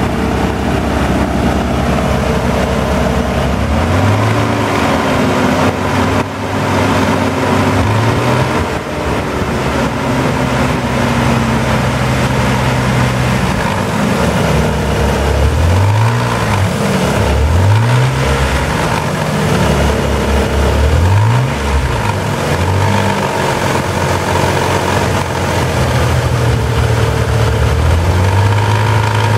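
Nissan 300ZX (Z32) naturally aspirated 3.0-litre V6 (VG30DE) idling and being blipped several times. Through it runs an odd fluttering noise from the engine, like paper held against a spinning pedestal fan, clearest around the revs about 18 seconds in; its cause is unknown.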